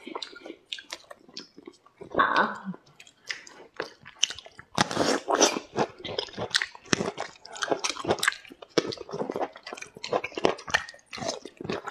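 Close-miked eating sounds: biting into and chewing pieces of fruit, with a steady run of wet mouth clicks and smacks.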